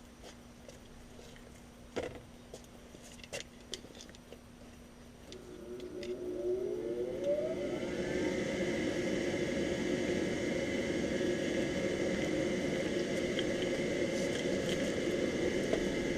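Rheem 80% gas furnace's draft inducer motor starting: a few faint clicks, then about five seconds in the motor spins up with a rising whine and settles into a steady whirring hum. This is the first stage of the furnace's ignition sequence, before the igniter heats.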